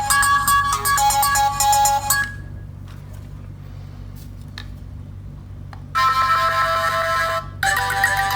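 A phone ringtone melody played through a smartphone's loudspeaker, likely the Homtom Zoji Z8's repaired speaker being tested. The melody breaks off about two seconds in, a few faint clicks fall in the pause, and the tune starts again about six seconds in.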